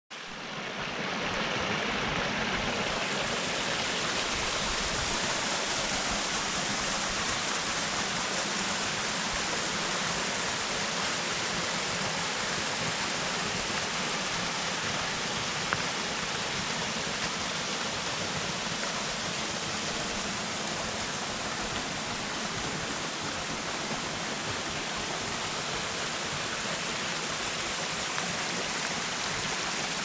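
Forest stream and small waterfall rushing steadily, a constant water noise that fades in over the first second or two.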